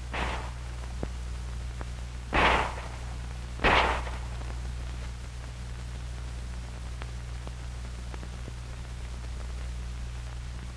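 Two M1911 .45 ACP pistol shots, just over a second apart, over the steady low hum and hiss of an old film soundtrack.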